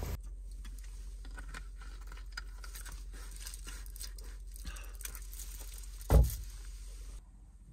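Small rustles and clicks of gear being handled in a car's cabin, over a low steady hum, with one loud dull thump about six seconds in.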